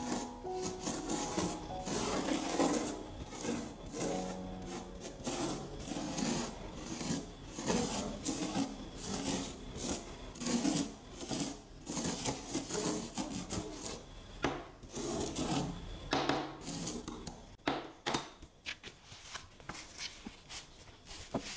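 A plastic spoon scraping and spreading loose colored sand over sticker paper in many quick rubbing strokes, which thin out near the end.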